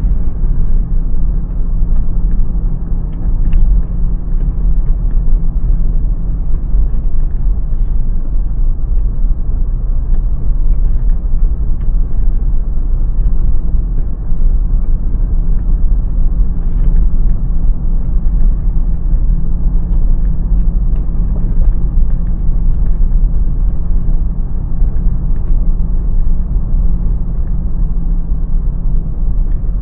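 Car driving along a road: a loud, steady low rumble of engine and road noise, with a few faint ticks here and there.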